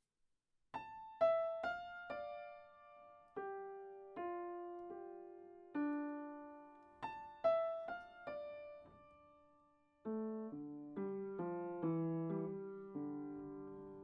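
Solo piano playing slow, sparse notes, each one ringing out and fading. The music fades almost to silence just before ten seconds in, then a new phrase starts in a lower register.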